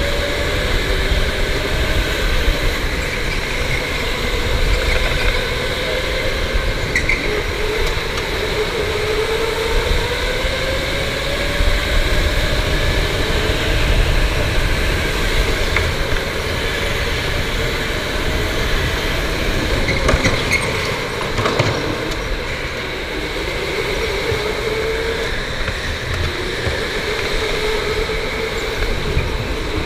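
Electric go-kart motor whining, its pitch rising and falling as the kart speeds up down the straights and slows into the corners, over a steady low rumble of wind and track noise. A few brief knocks are heard along the way.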